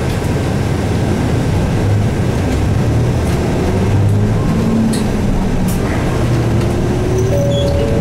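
Isuzu Erga city bus's 6HK1 diesel engine pulling away and accelerating, heard from inside the bus. Revs rise and drop back as the automated six-speed gearbox shifts up.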